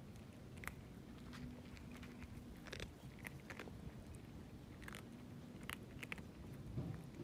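Stray kittens eating at a dish, chewing and crunching their food in irregular, faint crunches.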